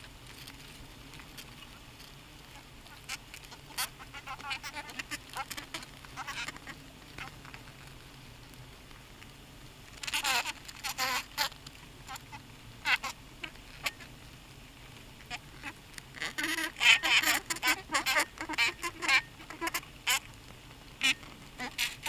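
Heterotrigona itama stingless bees inside their hive, crawling and flying right at the microphone: irregular scratchy clicks mixed with short buzzes, densest about ten seconds in and again from about sixteen to twenty seconds.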